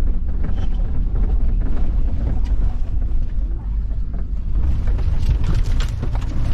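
Vehicle driving over a rough dirt track: a steady low rumble of engine and tyres with scattered knocks and rattles.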